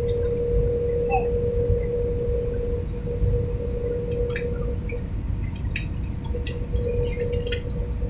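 Jet airliner cabin noise heard from a window seat on the approach to landing: a steady low rumble of engines and airflow with a steady droning hum above it, and a few faint clicks.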